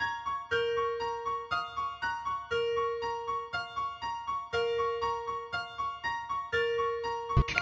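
Background music: a light keyboard tune in short, evenly repeating piano-like notes, about four a second, over a held lower note each second. Near the end a sudden thud cuts in.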